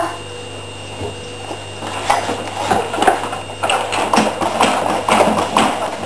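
Wooden playpen knocking and rattling in quick, irregular strokes as a toddler shakes and pushes its rails. It starts about two seconds in and grows busier toward the end.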